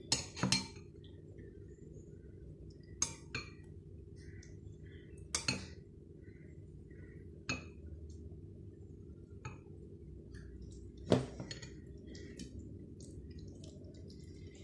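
Tableware clinking as a meal is eaten: a handful of sharp clinks of dishes and cutlery, the loudest about eleven seconds in, with faint small clicks between them over a steady low hum.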